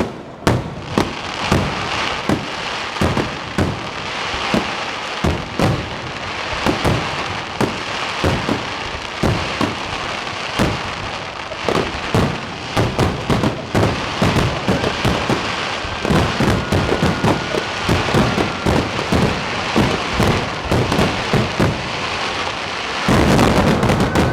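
Fireworks display: aerial shells bursting in a long series of sharp bangs, spaced out at first, then coming closer together, ending in a loud, dense barrage near the end.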